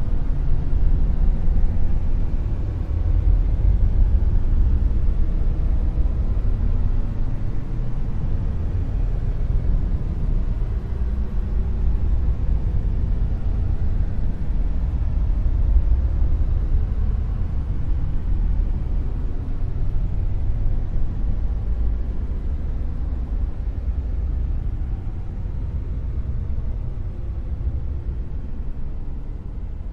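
Dark noise: a steady, deep rumbling hiss, most of its weight in the bass with little top end, easing slightly quieter toward the end.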